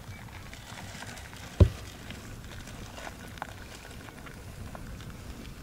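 Hands handling paper food wrappings, with a few faint crinkles, and a single dull thump about a second and a half in.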